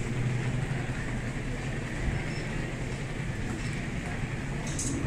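Steady low hum and background noise of a busy airport departure gate.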